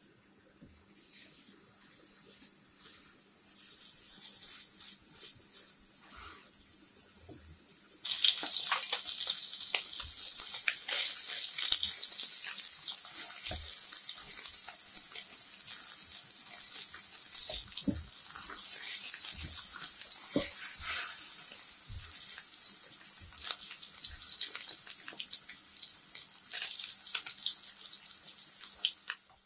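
Ground-meat hamburger patties searing in oil in a frying pan, a steady sizzle with scattered pops and crackles as their outsides brown. The sizzle is faint at first, swells, then jumps suddenly louder about eight seconds in.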